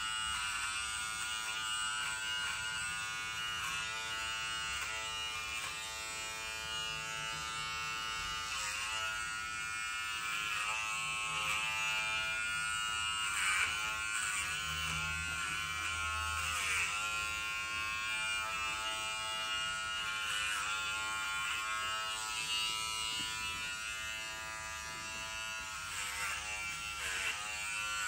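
Small cordless pet grooming trimmer buzzing steadily while it trims the fur on a dog's paw pads, its pitch dipping briefly several times.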